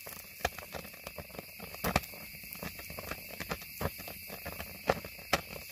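Small fire of kindling lit with shredded magnesium, crackling with irregular sharp pops over a faint steady hiss.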